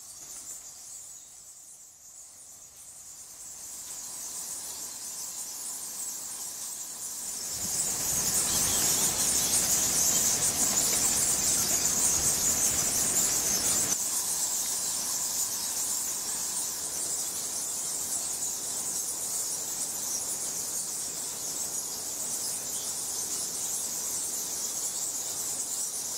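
A colony of bats roosting on a cave ceiling, squeaking and chittering in a dense high-pitched chorus. The chorus sets in several seconds in, is loudest for the next few seconds, then carries on a little softer.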